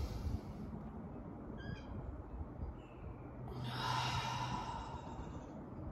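A woman's slow deep breathing: a breath in through the nose trails off at the start, then about three and a half seconds in comes a long breath out through the mouth lasting about two seconds.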